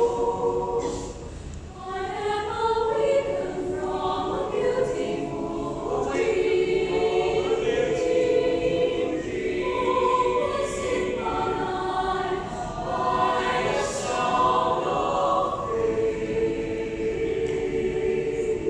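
A choir singing slow, held chords, the notes changing every second or two, with a brief softening about a second and a half in.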